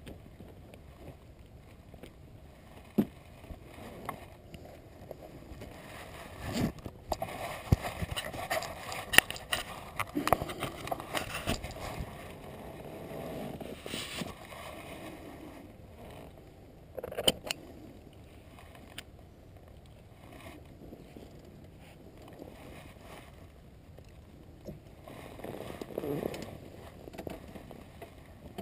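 Scattered knocks, scrapes and rustling as the metal tube frame of a flying trike is handled in tall grass, with the engine off. The noise is busiest in the first half, with a sharp clatter a little past the middle.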